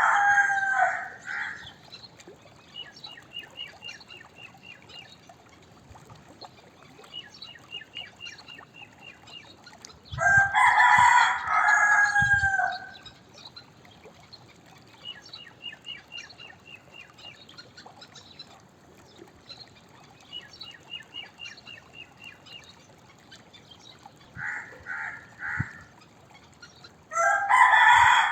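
Domestic rooster crowing: a crow trailing off at the start, a full crow about ten seconds in, a few short calls near the end and another crow beginning just before the end. Between the crows, faint high trills from a small bird.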